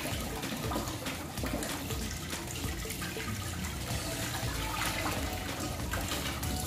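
Tap water running and splashing as mango and papaya are rinsed by hand, with occasional light knocks.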